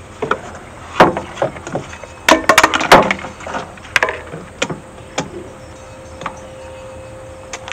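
Plastic PTO driveshaft guard on a finish mower being handled and worked off by hand: a series of knocks and clicks, with a quick flurry of rattling clatter about two to three seconds in, then a few scattered taps.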